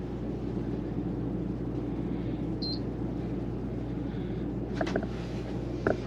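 East Doll folding washing machine's small DC motor running steadily, agitating a load of clothes in soapy water just after being switched on. A short high beep comes about two and a half seconds in, and a couple of clicks near the end.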